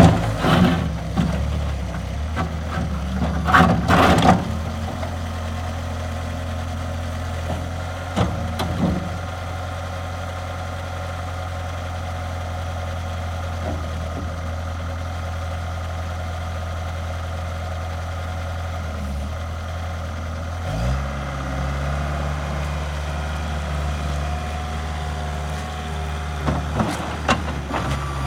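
Bobcat S185 skid steer's diesel engine running at a steady idle, with a few knocks and clatter in the first few seconds. About three-quarters of the way through the engine revs up and holds at a higher speed.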